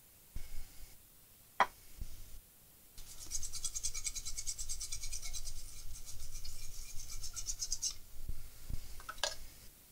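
A small brush scrubbing rapidly back and forth over a laptop motherboard for about five seconds, cleaning around the freshly soldered Super I/O chip, with a sharp tap before and after.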